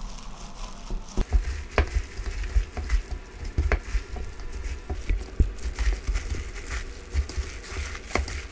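Gloved hands tossing blanched scallions in a wet red pepper and fish sauce seasoning in a plastic bowl: continuous wet, crackly mixing with the rustle of plastic gloves, scattered clicks and irregular soft bumps.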